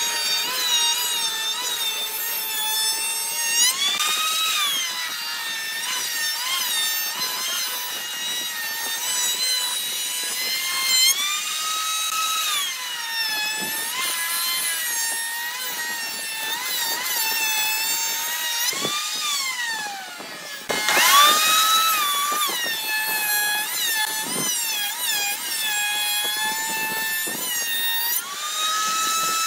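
A table-mounted power cutter runs under a homemade wooden bench as a pine board is fed past it along a fence, cutting a rebate into the board's edge. The motor's whine sags in pitch while the cutter is in the wood and climbs again when it runs free. About two-thirds of the way through, the whine winds down briefly and then spins back up.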